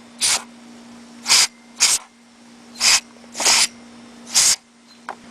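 Short hissing bursts from a can of Dust-Off compressed air duster blown into a carburetor bowl to clean out carbon deposits, six bursts about half a second to a second apart.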